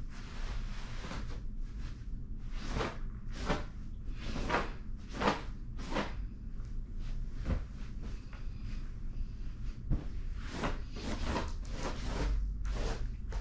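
Bed sheets being handled and pulled on a mattress: fabric rustling and swishing in a string of irregular strokes.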